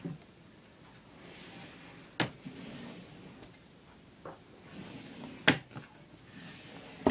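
Wooden dresser drawers slid open and pushed shut, with four sharp knocks of the drawers, the loudest a little past the middle, and faint rustling of the baby things inside between them.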